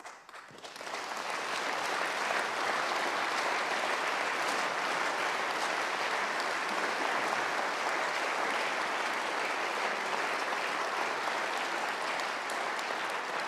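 Audience applauding, a dense steady clapping that builds up over the first second or so and holds.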